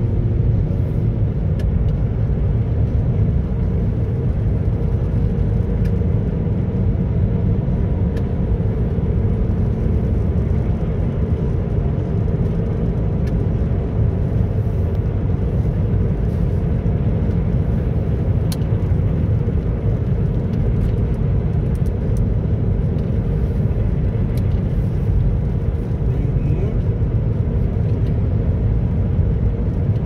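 Steady road noise inside a moving car's cabin, driving at about 60 km/h: tyres on the road and a low, even rumble.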